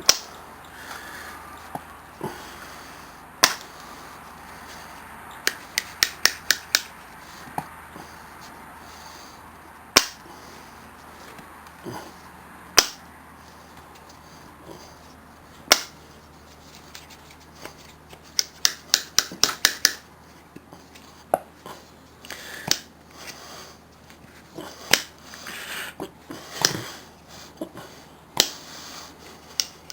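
Old rusted pliers being worked open and shut by hand, their jaws and pivot giving sharp metal clicks, some single and some in quick runs of several. The pivot has been freed up with penetrating oil and now moves easily.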